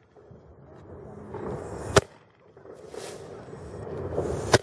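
Estes D11 model rocket engines burning in a homemade firework: a hissing burn that builds over about two seconds and ends in a sharp crack, twice, each time cutting off suddenly.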